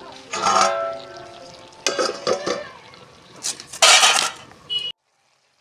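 Metal spatula clanking and scraping against a wok while leafy greens are stir-fried, in several loud, ringing strokes. The sound cuts off suddenly near the end.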